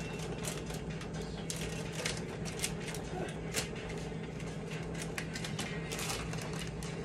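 Clear plastic wrap crinkling in quick, irregular crackles as round flatbreads are handled and pulled at inside it, the bread sticking to the wrap. A steady low hum runs underneath.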